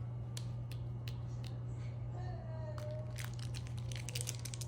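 Plastic candy packaging being handled and opened: a few sharp clicks about three a second, then dense crinkling and crackling in the second half, over a steady low hum.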